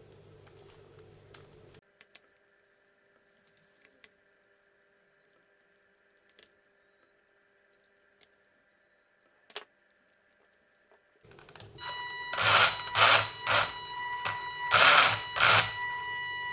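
The WLToys 144001 1/14 RC car's electric motor and geared drivetrain run in repeated throttle bursts from about 11 seconds in, whining with a harsh grinding rattle. The grinding has not been cured by cleaning and rebuilding the differentials. Before that there is near silence, broken only by a few faint clicks.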